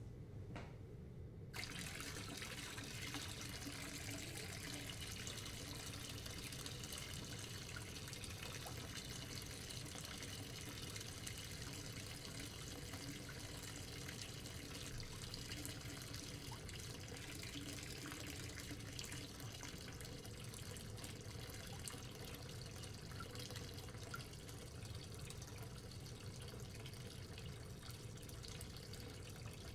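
Tap running steadily, filling a bathtub with water; it starts about a second and a half in and stops near the end.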